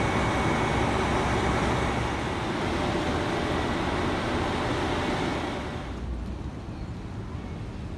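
Station platform din with a KiHa 261 diesel express train idling at the platform, as a loud, even hiss and rumble. About five and a half seconds in, it drops to a quieter, duller low rumble.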